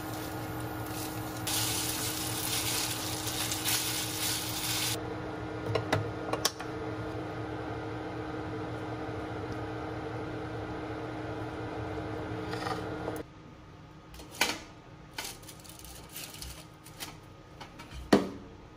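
Induction cooktop humming steadily with a few fixed tones while a pan of pasta reheats on it, a hiss swelling over it for about three seconds near the start. Serving tongs tap against the pan a few times; about two-thirds through the hum stops and a few louder taps follow.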